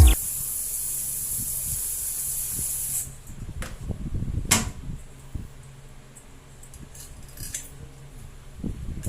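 Handheld bidet sprayer spraying water in a steady hiss that cuts off about three seconds in, followed by a few sharp clicks and knocks.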